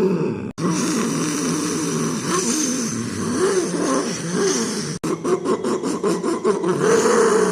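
A person imitating a motorbike engine with the voice, the pitch rising and falling as if the throttle were being revved. About five seconds in, the imitation turns to a fast sputtering pulse. The sound is broken by two brief cuts.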